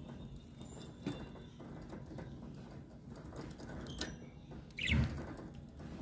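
Budgerigar moving about in a wire cage: faint scattered clicks over a low background rumble, then a short chirp and a low thump together about five seconds in.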